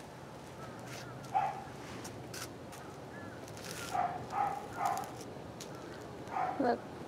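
A dog barking in short single barks: one early, three in quick succession around the middle, and one near the end that falls in pitch.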